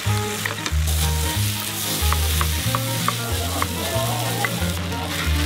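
Kimchi fried rice sizzling in a hot tabletop pan while two wooden spatulas stir and chop through it, with short scattered clacks of the spatulas against the pan.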